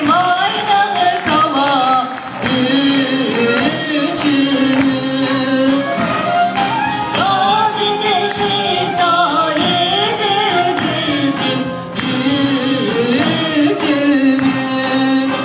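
A man and a woman singing a Turkish folk duet into microphones, accompanied by an ensemble of bağlama long-necked lutes. The singing carries a melody with long held notes.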